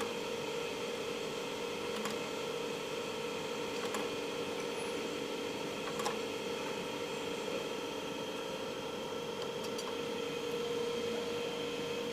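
Steady electrical hum with a few faint clicks about every two seconds, from the cold welding die being pressed repeatedly to upset and join two copper rods.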